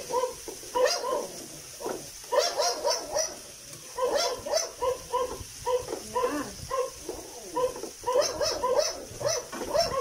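A small dog barking repeatedly in short, high yaps that come in quick runs of several.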